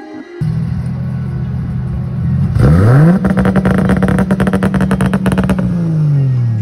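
Turbocharged Toyota 2JZ-GE straight-six idling, heard from the exhaust. About two and a half seconds in it is revved up and held against the two-step launch rev limiter, the note cutting in and out as a rapid stutter of pops, then the revs fall back near the end.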